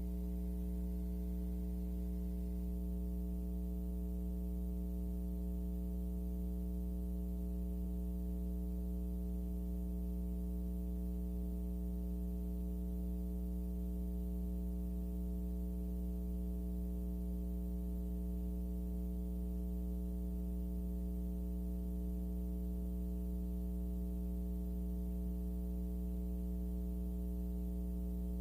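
Steady electrical mains hum with a buzzy stack of overtones, carried on the radio stream's dead air once the alert has ended. It holds one unchanging pitch and level throughout.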